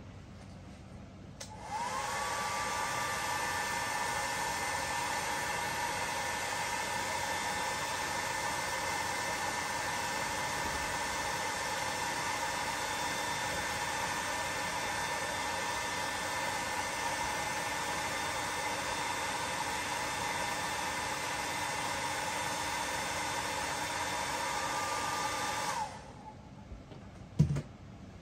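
Hair dryer running steadily, switched on about two seconds in and off about two seconds before the end, blowing hot air through a fidget spinner's alcohol-cleaned bearing to dry it. A single sharp click comes near the end.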